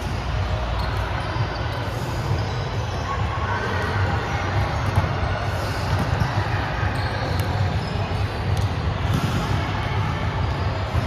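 Indoor volleyball game: the ball is struck and bounces on the court with sharp, scattered thuds over a steady, echoing hall rumble, and players' voices run underneath.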